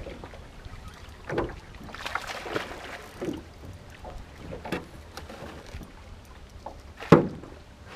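Small waves slapping now and then against the hull of a jon boat, with wind on the microphone; the loudest slap comes about seven seconds in.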